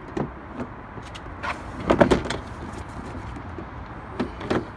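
Nissan Qashqai's plastic tailgate trim panel knocking and clicking as it is pressed and worked into place on the tailgate, with a cluster of sharper knocks about two seconds in and a few more near the end.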